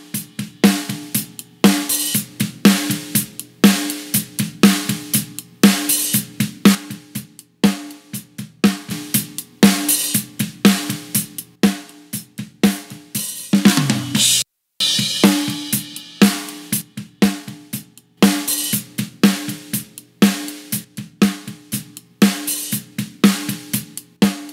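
Playback of a recorded drum groove built around a heavy snare drum, the dry snare bus blended with a parallel-compressed copy of itself. About halfway through, a short fill falls in pitch and breaks off for a moment. The groove then comes back in with a bright cymbal hit.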